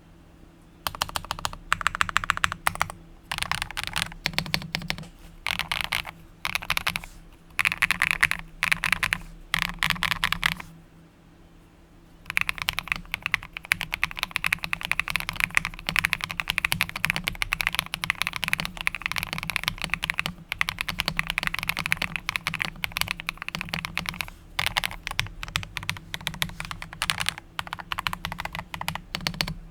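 Typing on a mechanical keyboard fitted with LODK Studio Wind Chime linear switches. Short bursts of keystrokes come first, then a brief pause about 11 seconds in, then fast continuous typing.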